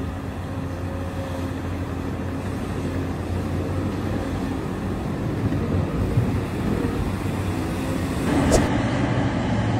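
Caterpillar 395 hydraulic excavator running steadily while loading rock into a dump truck: a continuous low diesel drone with hydraulic noise, growing louder near the end, where a single sharp knock is heard.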